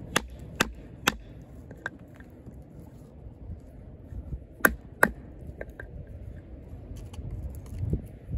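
Wooden baton striking the spine of an Oerla OLK-033RD fixed-blade knife to drive it through a piece of wood. Sharp knocks: three quick strikes in the first second, two loud ones about halfway, and a few lighter taps near the end.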